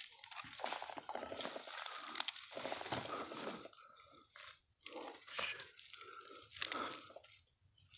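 Dry leaves and brush crunching and rustling underfoot in irregular spurts, with short pauses.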